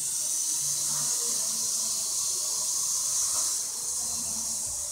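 Micro RC helicopter's small electric motors and rotors running with a steady high-pitched hiss as it lifts off the floor and hovers.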